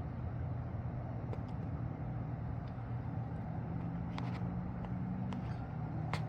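Steady low outdoor rumble with a faint hum, unchanging in level, and a few faint clicks scattered through.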